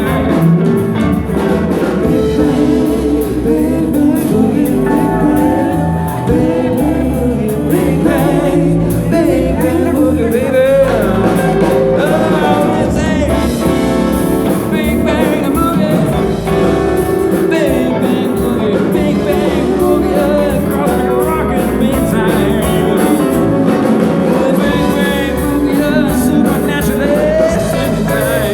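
A live band playing a song with a singer, a steady full mix of vocals, instruments and bass.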